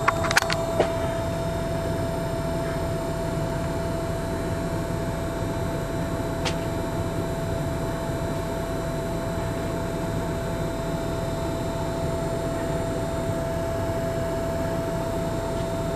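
A 4WD vehicle idling, heard from inside the cab as a steady noise with a constant high hum. There are a few light clicks in the first second.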